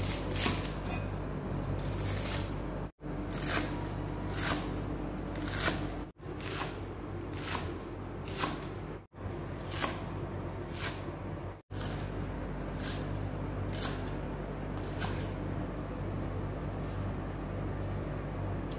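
Kitchen knife chopping spring onions on a wooden cutting board, one stroke about every second, with a steady low hum underneath. The sound drops out briefly a few times at edit cuts, and the chopping thins out near the end.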